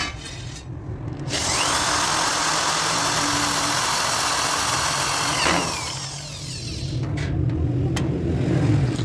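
A handheld electric power tool starts up with a rising whine and runs loud and steady for about four seconds, then spins down. A quieter low rumble and a few clicks follow.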